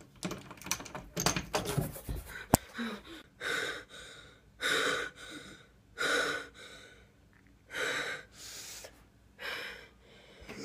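A run of knocks and clatter in the first couple of seconds, then a person's heavy, gasping breaths, slow and regular at about one a second.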